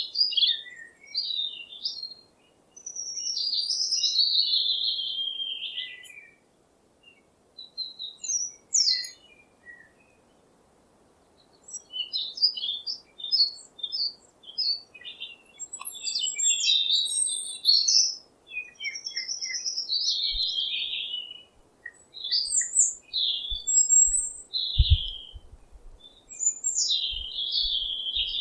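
Songbirds singing in separate phrases of quick chirps, trills and gliding whistled notes, with short pauses between phrases. A few faint low thumps come near the end.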